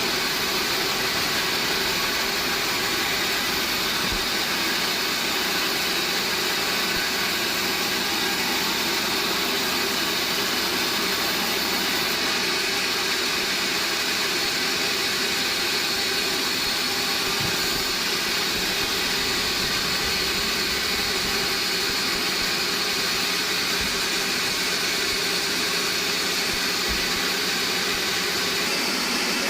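Band sawmill running with a steady, even mechanical noise and no breaks.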